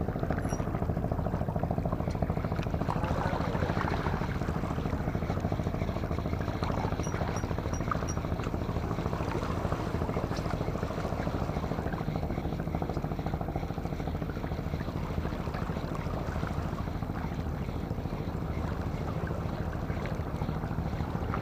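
Boat engine running steadily: a low, even drone with a noisy wash above it.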